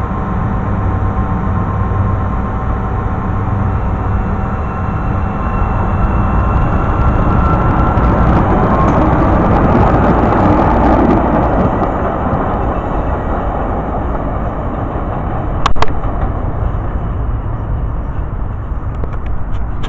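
A CTA 5000-series rapid-transit train pulls out of the station: a steady rail rumble with a faint motor whine, growing louder as the cars get moving and pass, then fading. A single sharp knock sounds near the end.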